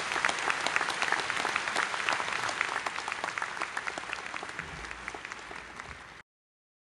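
Audience applauding, the clapping dying down over the last few seconds and then cutting off abruptly near the end.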